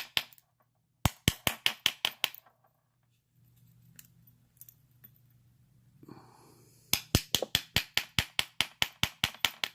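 Rapid light taps of an improvised bump hammer on a bump key set in a Master Lock padlock, about five strikes a second, to bump the pins open. There is a short run of taps about a second in and a longer run from about seven seconds on, with a pause between.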